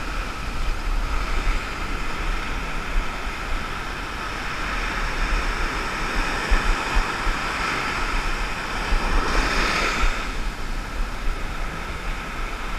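Ocean surf breaking and washing up a sandy beach, a steady rush that swells louder about nine seconds in as a wave runs in.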